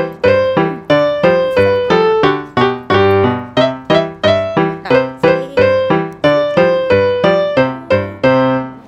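Background piano music: a melody of single struck notes at an even pace, about two to three a second, each dying away before the next.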